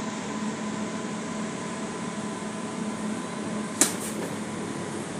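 Steady hum of a kitchen fan running, with one sharp click a little before four seconds in.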